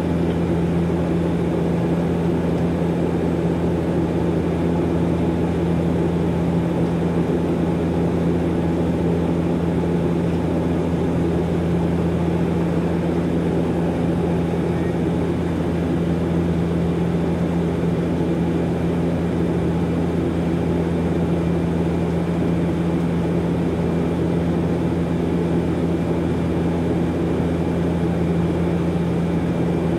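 Cabin noise of a Bombardier DHC-8-Q400 turboprop in level cruise, heard from a window seat beside the propeller of its Pratt & Whitney PW150A engine: a steady drone with several steady low hums that do not change.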